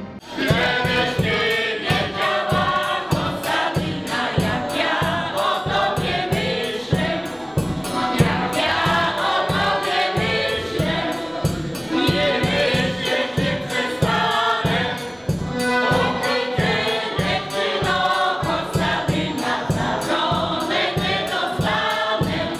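A mixed folk choir in traditional costume singing together, over a steady low beat of about three strokes a second.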